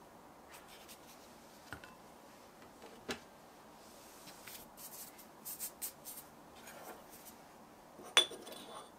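Quiet handling of baking utensils: a soft tap about three seconds in, a few light rustling scrapes in the middle, and a sharp clink with a short ring near the end.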